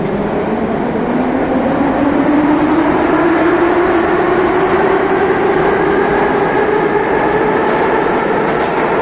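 Metro train pulling out of the station: the whine of its traction motors rises in pitch as it picks up speed, over a loud rumble of wheels on rail. The sound eases slightly near the end as the last car leaves.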